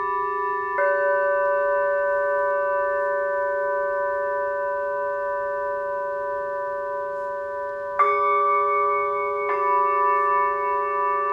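Tibetan singing bowls struck and left ringing, their sustained overlapping tones layering on one another. Fresh strikes come about a second in, then twice more near the end, each adding a new ring that slowly wavers as it sustains.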